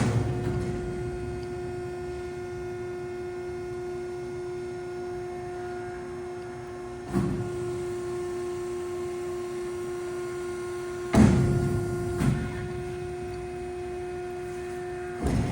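Four-roll CNC plate bending roll running under power with a steady machine hum. Several sudden louder surges or clunks come in: at the start, about seven seconds in, twice around eleven to twelve seconds, and near the end, as the machine changes motion.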